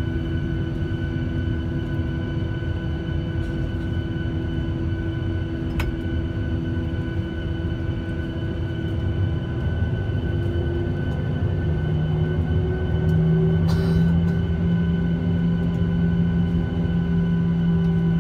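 Cabin noise of a Boeing 737-800 taxiing: a steady low rumble from its CFM56 engines near idle and the wheels on the taxiway, with steady humming tones. About twelve seconds in, a low hum grows stronger and the noise gets a little louder.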